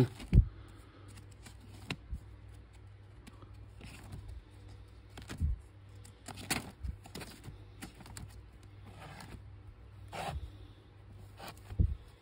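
Vinyl records in card sleeves being flicked through by hand in a box: papery scrapes and rustles as sleeves slide past each other, with a soft knock now and then as one falls against the next.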